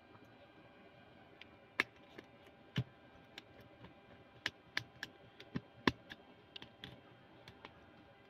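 Small screwdriver working the screw terminals of a mini amplifier board to clamp speaker wires: an irregular string of light, faint metal clicks and ticks, starting about a second and a half in.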